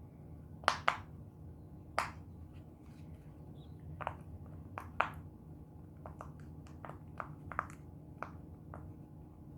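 Plastic fidget toys being handled and pressed: about fifteen sharp, separate clicks and taps at uneven intervals, a few louder than the rest.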